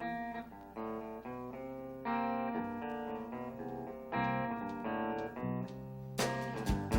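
Live band playing the instrumental intro of a blues song: a keyboard plays sustained chords, and about six seconds in, drums come in with sharp repeated hits.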